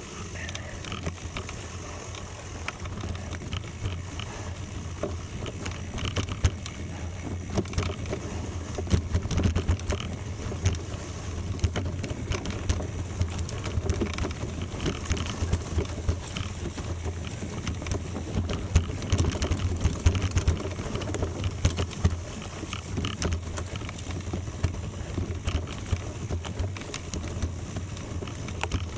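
Gravel bike rolling over a gravel road: a steady low rumble with many small scattered clicks and crunches from the tyres on loose stones.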